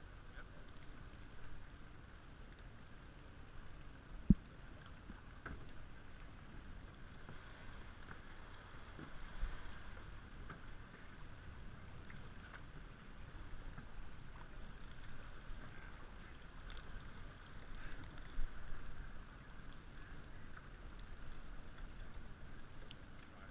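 Boat under way with its Evinrude 200 outboard running: a steady wash of water and motor noise. A single sharp knock about four seconds in.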